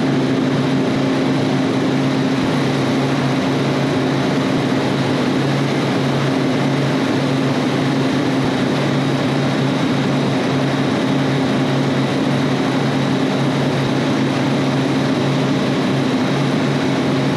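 Steady, loud drone of running refrigeration machinery: compressors and condenser fans in a compressor room, an even hum that does not change.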